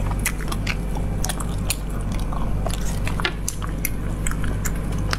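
Mouth sounds of a person chewing braised snails, picked up by a lapel microphone: a quick, irregular run of sharp clicks and smacks, over a steady low hum.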